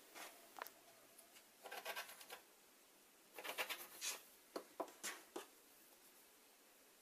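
Faint rubbing and rustling of T-shirt fabric strips being handled and slid over a plastic cutting mat, in two short bursts, followed by a few light knocks.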